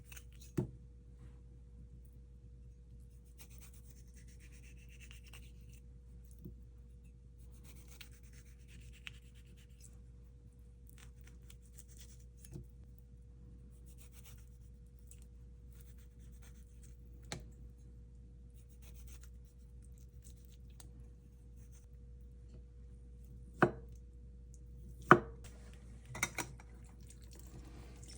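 Sparse kitchen knocks and light clatter of utensils being handled, the loudest three close together near the end, over a steady low hum with a faint steady tone.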